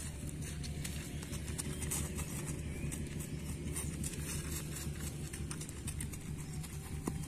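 Outdoor wind rumbling on the microphone, with scattered light clicks and ticks.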